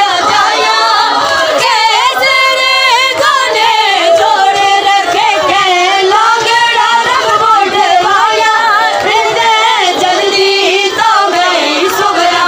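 A woman singing a lament in long, wavering held notes.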